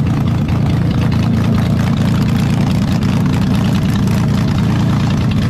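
Off-road competition vehicle's engine idling steadily, with no change in revs.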